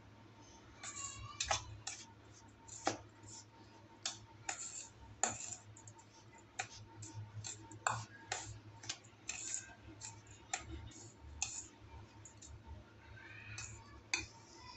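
Metal spoon stirring dry powdered biscuit crumbs and sugar in a stainless steel bowl, with irregular clinks and scrapes as it strikes the bowl's side.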